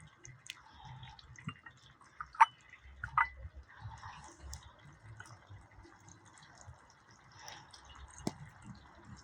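Scattered faint clicks and taps, the two loudest about two and a half and three seconds in, each ringing briefly.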